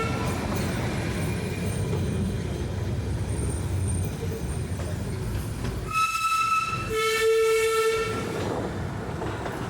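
Darjeeling toy train rumbling steadily, then sounding its whistle twice, about six and seven seconds in. The first blast is high-pitched and the second lower, each lasting about a second.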